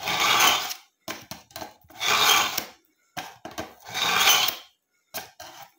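Steel knife blade drawn through the slot of a BAUM ZINDECH ZRT-400 manual knife sharpener, three rasping strokes about two seconds apart with light clicks between them as the blade is set back in the slot.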